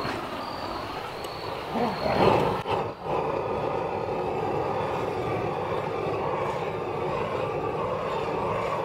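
A propane torch on a hose burning: a few uneven surges about two seconds in, then a steady hiss of the burning gas.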